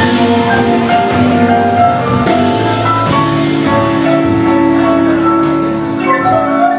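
Live band playing an instrumental passage, with sustained chords, a long held note from about halfway through, and quicker short notes near the end.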